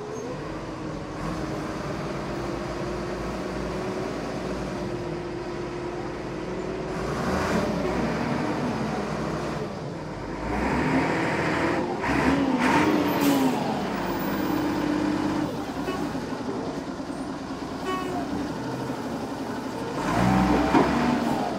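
Large forklift engine running under load while moving lumber, with the engine pitch rising and falling and getting louder about halfway through and again near the end.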